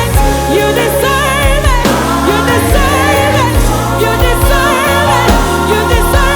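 Live gospel worship music: sung vocals with vibrato over keyboard chords, bass and drums.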